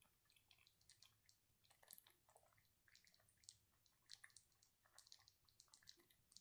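Near silence, with faint scattered clicks and ticks.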